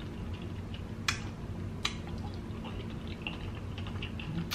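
Faint wet ticks and squishes of a peeled kiwi being handled and its skin picked at with the fingers, with two sharp clicks about a second in and just before the two-second mark.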